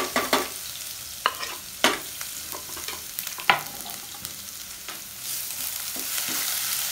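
Crushed garlic sizzling in hot oil in a nonstick pan, with a few sharp knife taps as the last of it is scraped in off a wooden chopping board. From about five seconds in the sizzle grows louder as a wooden spatula stirs it.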